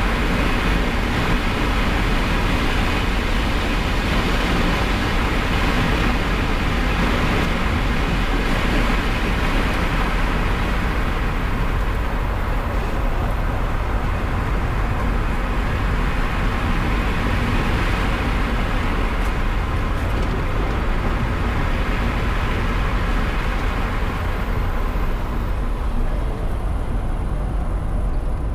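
Electric car driving fast on a race track: steady tyre and wind noise, with a faint high whine that comes and goes.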